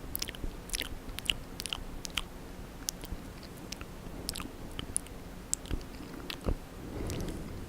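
Close-miked ASMR mouth sounds: wet lip smacks, tongue clicks and licking, many short irregular smacks.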